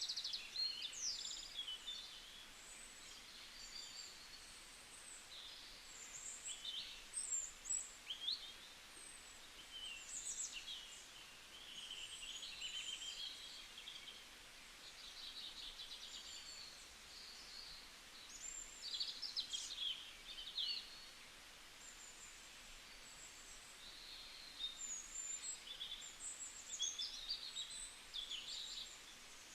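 Several forest songbirds chirping, whistling and trilling, their calls overlapping in bursts with short quieter spells, over a faint steady background hiss.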